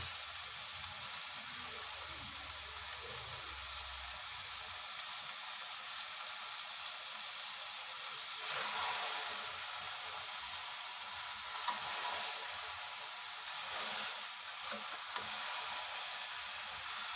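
Keema and okra sizzling steadily in an aluminium pot on the stove, with a few louder swells and small clicks in the second half as a spoon stirs through the mix.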